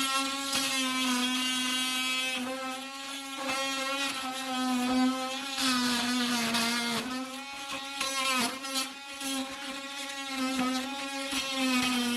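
Handheld electric power tool running with a steady high buzz while cutting old wall paneling, its pitch sagging slightly now and then under load.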